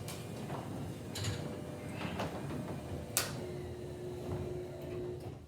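Whisper Drive Plus belt-drive garage door opener running and moving the door, a steady hum with a few sharp clicks from the door's moving parts. A steady tone joins in past the middle, and the sound drops away at the end as the door stops.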